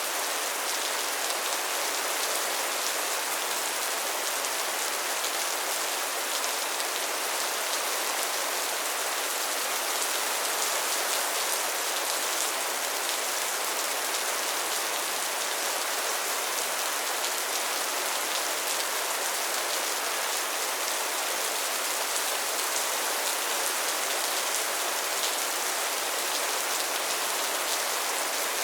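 Steady rain falling: an even, unbroken hiss, brightest in the high treble, with faint ticks of individual drops.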